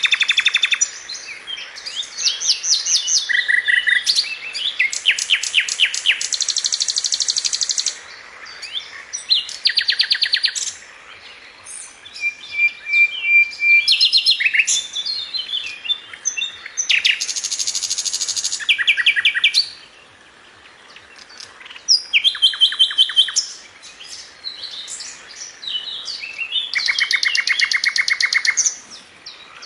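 Songbirds singing and chirping: fast trills of rapidly repeated high notes and short whistled phrases, with one song at times overlapping another and a few brief lulls.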